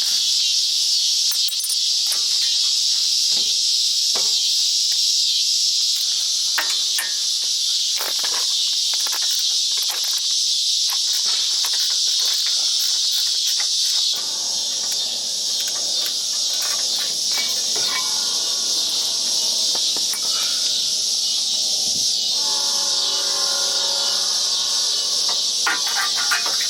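A steady, loud chorus of insects buzzing high and constant, with scattered sharp clicks and knocks over it.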